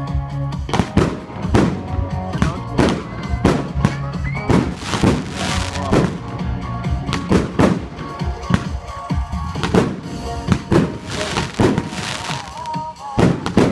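Consumer firework battery (Blackboxx 'Starkstrom' cake) firing a rapid string of shots, roughly two a second, over loud background music.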